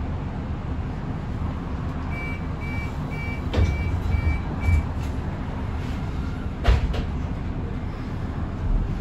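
Inside an Alexander Dennis Enviro400EV electric double-decker bus: steady low rumble, with a run of six short, high beeps about half a second apart starting about two seconds in. A few sharp knocks come during and just after the beeps, the loudest near the end of the beeps and again about seven seconds in.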